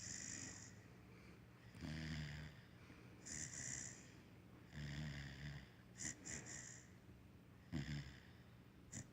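Basset hound puppy snoring in his sleep: a low snore about every three seconds, each followed by a hissing breath.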